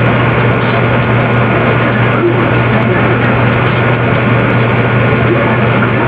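Loud, steady droning hum: a constant low tone under a dense hiss, unbroken and unchanging.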